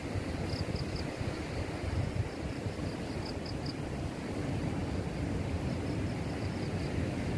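Sea surf washing against the rocks at the foot of a cliff, a steady rumble mixed with wind buffeting the microphone. Faint short high chirps come in small clusters now and then.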